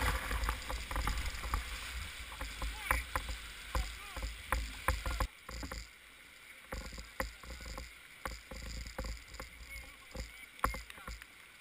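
Oar raft in a fast, flooded river: a low rumble of rushing water and wind on the microphone, with frequent sharp knocks and clunks from the oars working in their oarlocks and frame.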